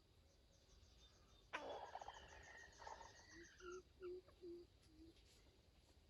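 Wild junglefowl calling, faint: a sudden harsh call about a second and a half in that falls in pitch, followed by five short, low, clucking notes.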